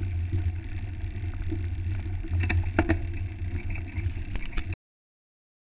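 Steady low rumble of a mountain bike riding a dirt forest trail, heard through a handlebar-mounted camera, with a few sharp rattles from bumps about two and a half to three seconds in. The sound cuts off suddenly near the end.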